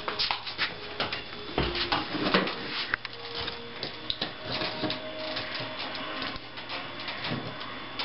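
Irregular knocks, scrapes and crunches of old plaster and wood lath being worked loose from a ceiling and broken underfoot during demolition.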